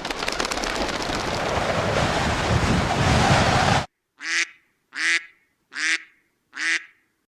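A loud rushing noise that builds for nearly four seconds and cuts off abruptly. It is followed by four short, nasal honking calls about three-quarters of a second apart.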